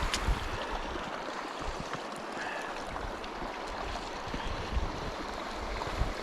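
Small stream running, a steady rush of water, with occasional low thumps and rumbles close to the microphone.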